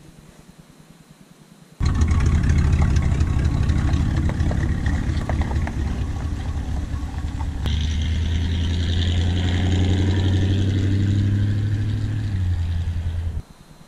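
1978 Chevy C20 pickup's 350 V8 running steadily as the truck moves off. A higher rushing noise joins about six seconds after it starts. The sound starts and stops abruptly.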